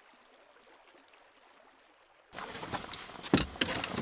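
Faint hiss for about two seconds, then outdoor wind noise on the microphone begins suddenly, with rustling and scattered knocks from a man climbing into a pickup truck's cab. One sharp knock stands out about a second later.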